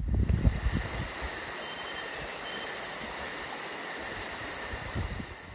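High-pitched insect chirping, an even pulse about six times a second over a steady high hum, with a little low wind rumble on the microphone in the first second.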